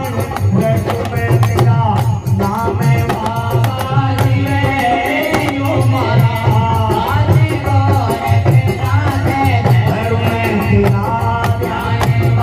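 Live Rajasthani devotional bhajan: a male voice singing over a steady drum beat, with large hand cymbals (jhanj) clashed in a fast, even rhythm.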